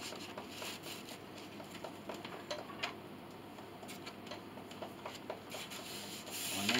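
Light, irregular clicks and taps of hand work at a woodworking bench.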